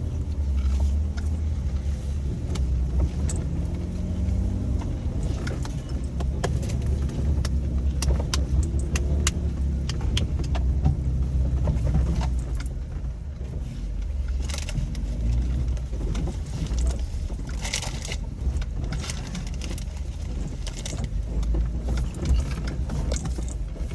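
Jeep engine running at low trail speed as the Jeep crawls over rough off-road ground. Scattered clicks, knocks and rattles come from the body and loose gear throughout.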